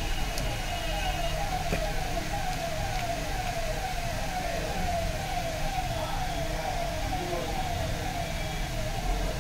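A siren repeating in quick falling sweeps, about two a second, over a steady low rumble.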